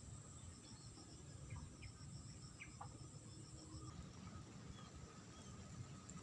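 Faint insects chirping: a steady high trill that stops about four seconds in, over pulsing chirps, with a few brief separate chirps near the start.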